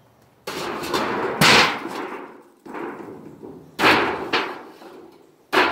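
Demolition of an old wood-and-tin shed: a run of about six loud bangs and clattering crashes, each dying away over about a second, the loudest about a second and a half in.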